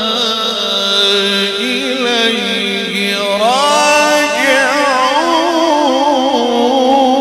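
Male Quran reciter chanting in the Egyptian style: long held, ornamented melismatic notes into a microphone, the voice climbing to a higher pitch about three and a half seconds in.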